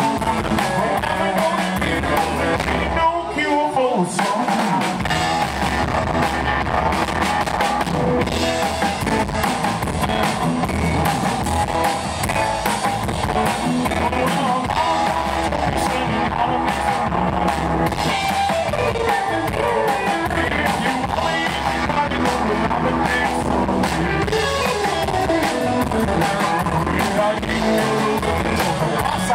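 Live rockabilly band playing: electric guitar, drum kit and upright bass. The low end drops out briefly about three seconds in, then the full band plays on.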